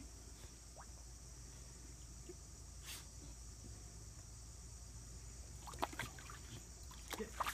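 Faint sloshing and splashing of muddy puddle water as a puppy lying in it pushes its head into the mud, with a few short splashes about six seconds in and again near the end.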